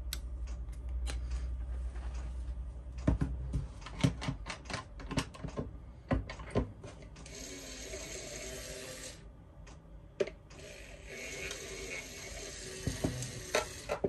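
Small handheld battery paint mixer running in a pot of paint, a low steady hum that stops about three seconds in. Then clicks and knocks of small tools and parts being handled, with two stretches of hiss in the second half.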